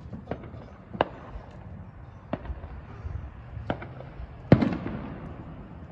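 Distant fireworks going off: about five sharp bangs at irregular intervals, the loudest about four and a half seconds in, followed by a rolling echo.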